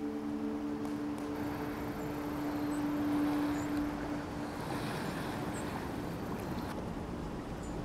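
A sustained ringing tone, one steady pitch with overtones, fades out a little after halfway, over a steady rush of wind and water.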